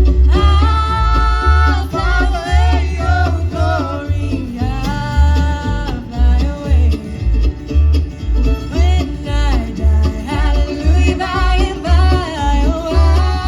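A live band playing a bluegrass tune, with a melody line that bends and slides in pitch over a steady low bass beat about twice a second.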